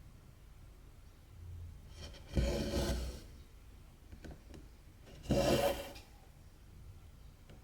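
Two strands of cotton embroidery thread pulled through 14-count cross-stitch fabric, a rasping hiss under a second long, twice about three seconds apart, with a few faint ticks in between.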